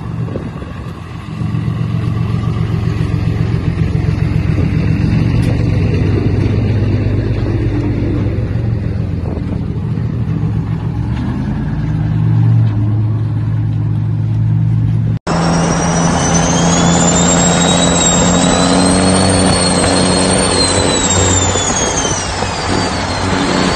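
Diesel truck engines running, heard as a steady low rumble across several short clips. About two-thirds of the way in the sound cuts abruptly to another engine with a high whistle over it that slowly rises and then falls.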